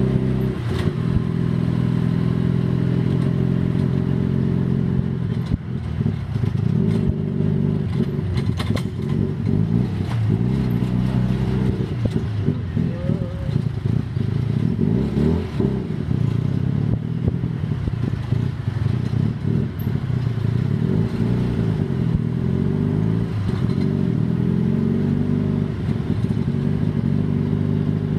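Tuk tuk's small engine heard from inside the open passenger cab, running loud and steady. Its pitch rises and falls again and again as it speeds up and eases off in stop-and-go traffic.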